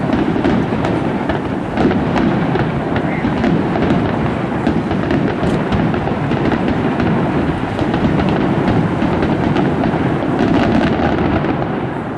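Fireworks display: a dense, continuous barrage of booming shell bursts and sharp crackles, loud throughout.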